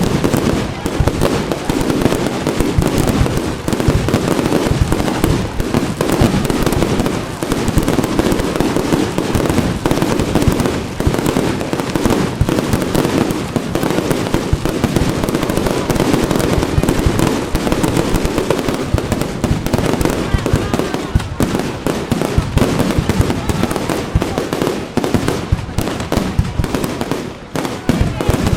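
Fireworks display: a continuous barrage of rapid bangs and crackles with no let-up.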